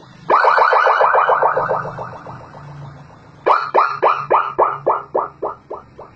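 Electronic 12-tone siren module in its echo mode, sounding through a horn loudspeaker. It gives rapid falling chirps in two bursts. The first starts a moment in and fades out. The second comes about three and a half seconds in at about four chirps a second, each echo fainter than the last.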